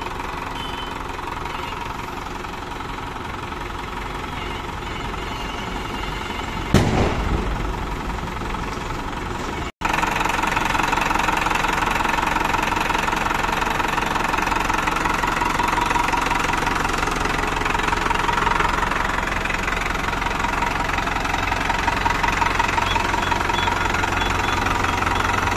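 Kartar 5936 60 hp tractor's diesel engine idling steadily. A single sharp knock about seven seconds in, a brief gap in the sound just before ten seconds, and the engine is louder and closer for the rest.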